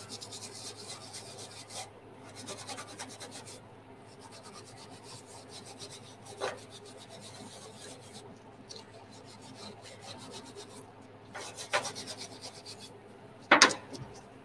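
Hand wire brush scrubbing solvent-softened paint off a metal panel of an aircraft engine starter cart, in runs of quick back-and-forth strokes with short pauses. A few sharp knocks come in between, the loudest near the end.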